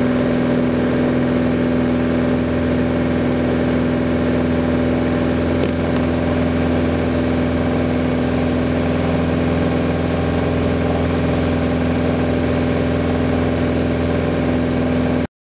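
Light aircraft's piston engine and propeller droning at a steady pitch, heard from inside the cockpit. The sound cuts off abruptly near the end.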